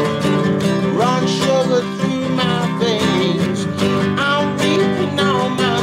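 Nylon-string classical guitar strummed in a steady rhythm, with a man singing a melody over it.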